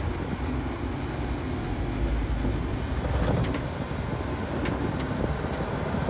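Steady low rumble of a pickup truck under way, heard from its open bed, with wind on the microphone and a few faint light ticks around the middle.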